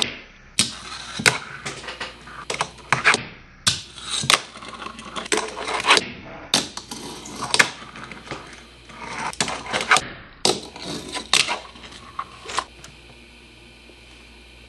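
Fingerboard tricks on a wooden desk: the small deck and its wheels clack and knock irregularly as it pops, lands, rolls and scrapes over a metal rail and a ledge. The clacks stop about 13 seconds in, leaving a faint steady hiss.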